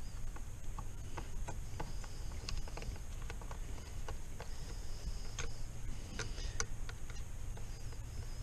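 Pliers clicking and ticking against a metal hose clamp on a radiator hose, in small irregular clicks, as the clamp is worked loose.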